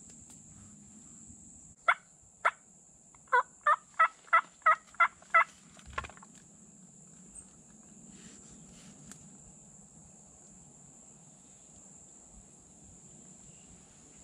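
Turkey yelping, loud and close: two single yelps, then a run of seven quick, evenly spaced yelps at about three a second, with one weaker note after.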